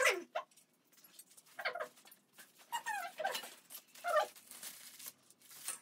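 A small animal's short cries, about five of them roughly a second apart, several falling in pitch.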